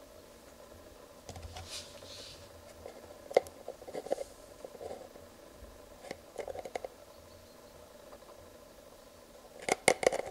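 A plastic screw cap and a plastic motor-oil bottle handled in the fingers: scattered light clicks and taps, a brief soft rustle about a second in, and a quick cluster of clicks near the end.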